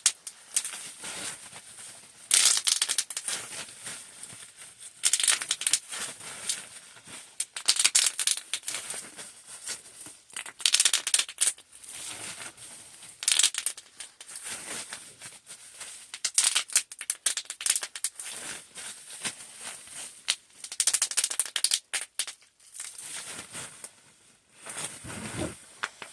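Plastic bag crinkling and rustling as it is handled, in irregular bursts of a second or two with quieter gaps between.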